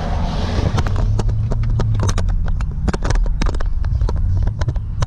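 Low, steady drone of a 2010 Camaro SS's V8 through a new Borla S-Type muffler, heard inside the cabin while driving. Many sharp clicks and knocks, irregularly spaced, sound over it.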